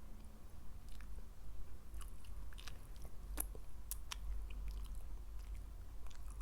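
Close-miked chewing of a lettuce-leaf taco stuffed with eggplant moussaka: irregular crisp, wet crunches and mouth clicks, the sharpest two a little past the middle.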